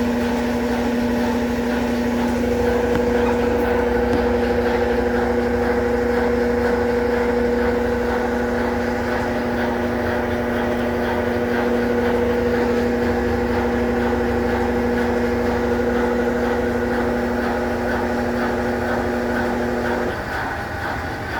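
Consul Facilite 11 kg CWG11 top-loading washing machine running its rinse cycle: the motor gives a loud, steady hum over a low rumble. The hum cuts off about twenty seconds in while the low rumble goes on.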